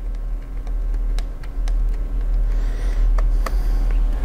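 A few light, separate clicks and taps of a small Phillips screwdriver on plastic and metal laptop parts as a screw is driven into a small IO board in the palm rest, over a steady low hum.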